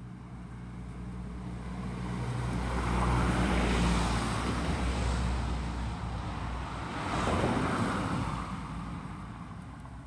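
Road traffic passing: two vehicles go by one after the other, their engine and tyre noise swelling and fading, the first about three to four seconds in and the second about seven seconds in.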